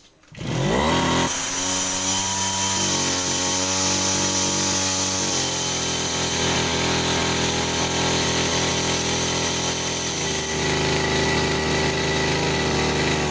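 Small brush cutter engine starting about half a second in, rising quickly in pitch and then running steadily, with a few slight changes in speed.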